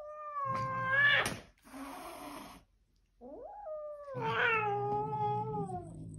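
Cat yowling, two long drawn-out calls: the first held steady then rising sharply at its end, the second sliding slowly down in pitch, with a short breathy noise between them. A tense, defensive call from a cat facing another cat it does not know.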